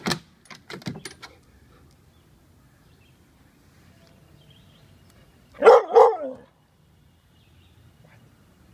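A dog barking twice in quick succession, about halfway through. In the first second or so, a few sharp taps and clicks from the dog's paws and claws on a hard plastic cover.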